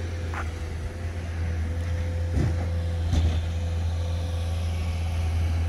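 A vehicle engine running steadily: a low, even rumble with a faint steady hum above it, and a couple of short knocks a little past two and three seconds in.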